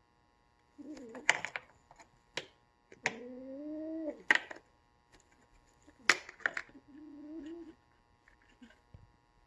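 A kitten giving three low, drawn-out growling calls, wavering in pitch, among sharp clicks and knocks of play with a toy.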